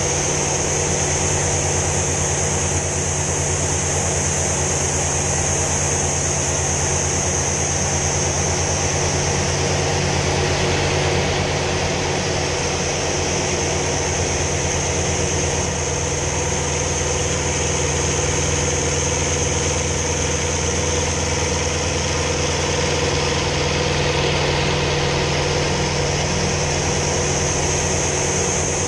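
Sea Fury T20's piston engine running steadily in flight, heard from inside the cockpit, with a high hiss that fades in the middle and comes back near the end.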